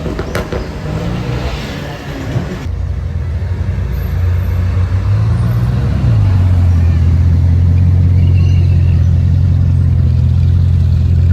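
A supercar's engine running close by: a deep, steady drone that grows louder about six seconds in and then holds, with street noise in the first few seconds.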